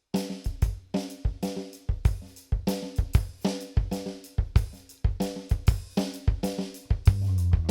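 Instrumental intro of a pop-rock song: a drum kit keeps a steady beat with kick, snare and hi-hat under repeated pitched chords, and a bass line comes in about seven seconds in.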